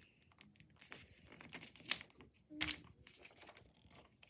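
A sheet of paper being folded and creased by hand into a paper airplane wing: soft crinkling with scattered crackles, the sharpest about two seconds in.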